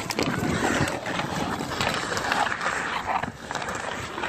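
Ice hockey play on an outdoor rink: skate blades scraping the ice, with irregular sharp clacks of sticks on the ice and puck.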